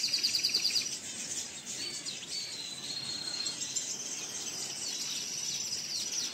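Small aviary birds, canaries among them, singing: a fast rattling trill in the first second, then scattered chirps and a held high whistled note.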